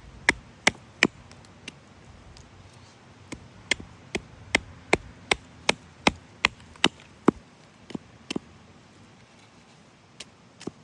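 Hatchet chopping the corners off a small cherry wood spoon blank: sharp single strikes, with a quick, even run of about two to three chops a second through the middle.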